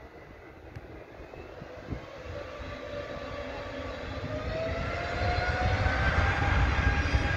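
Airbus A320 jet engines spooling up to takeoff power: a whine that climbs steadily in pitch and grows louder. A deep rumble builds from about five seconds in as the airliner begins its takeoff roll.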